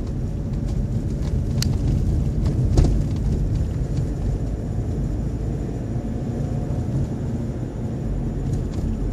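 Steady low rumble of a car's engine and tyres on the road, heard from inside the cabin while driving, with a couple of sharp clicks and a knock about three seconds in.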